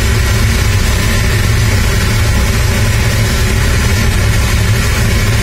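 Aircraft pushback tug's engine running steadily, heard from the tug's cab during a pushback, with a deep low rumble and an even hiss over it.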